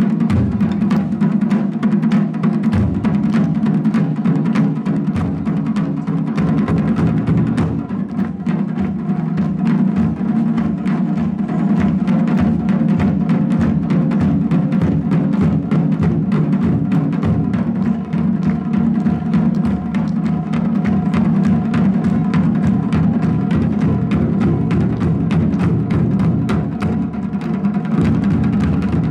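Japanese taiko ensemble drumming: barrel-shaped nagado-daiko on stands and rope-tensioned okedo-daiko slung from the shoulder, struck with wooden bachi sticks. The rhythm is dense and steady, with many strikes a second and no break.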